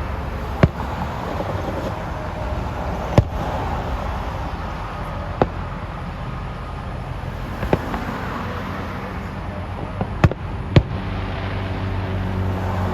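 Fireworks bursting: about six sharp bangs spread irregularly, two of them close together near the end, over a steady background rumble. A low steady hum comes in near the end.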